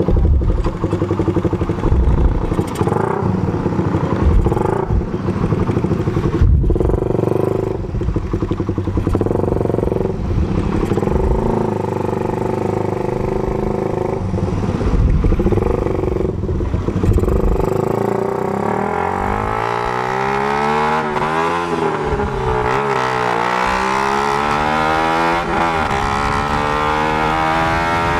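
Suzuki Raider 150's single-cylinder four-stroke engine running on a 28 mm flat-slide carburettor while riding. It goes unevenly at low speed with short knocks, then revs up through several gear changes in the last third. The rider calls the carb misfiring ("namamalya"): its jetting is off, with a large pilot jet and a small main jet.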